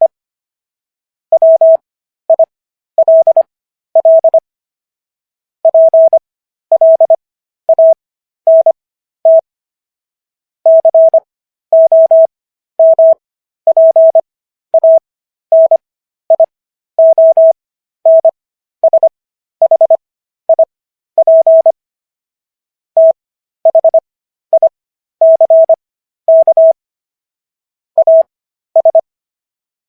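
Morse code sidetone: one steady mid-pitched beep keyed on and off in dots and dashes. Characters are sent at 25 words per minute with Farnsworth spacing, so the gaps between letters and words are stretched for an overall speed of 15 WPM.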